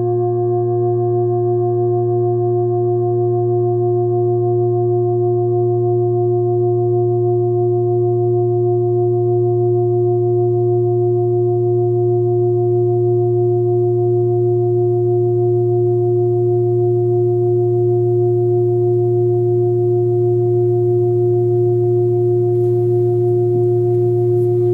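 A 28 cm forged Sun Moon singing bowl, tuned to about 117 Hz, sings with a steady, sustained hum: a deep fundamental with several higher overtones that slowly waver. The tone holds without fading.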